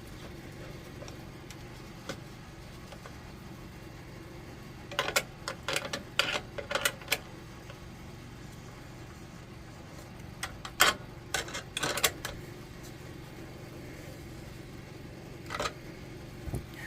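Sharp clicks and knocks of hands working a lantern vise as rubber shims are set in and the vise is tightened on a lantern. They come in three short clusters, about five, eleven and fifteen seconds in, over a faint steady hum.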